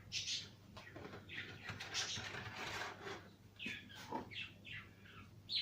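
A small bird chirping repeatedly in short falling chirps, with a stretch of scraping handling noise from about a second and a half in.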